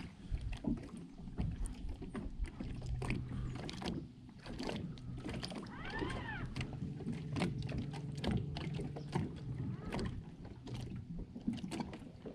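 Small fishing boat moving slowly under an electric trolling motor: a steady low hum starts a couple of seconds in and stops near the end, with scattered clicks and knocks from rod and reel handling. A short rising-and-falling whistle sounds once about halfway.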